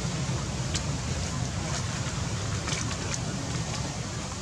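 Steady outdoor background noise with faint, indistinct voices under it and a few light clicks.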